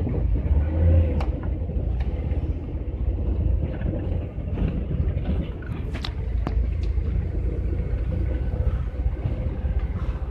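Cab noise of a GAZelle van driving over a cracked, patched asphalt road: a steady low rumble with a faint steady hum and a few sharp knocks and rattles from the rough surface, the sharpest about six seconds in.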